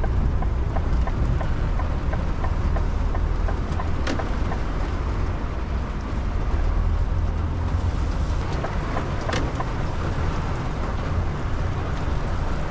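Heavy truck's engine running steadily, heard from inside the cab as the lorry rolls slowly through a parking area in rain, with a couple of faint clicks.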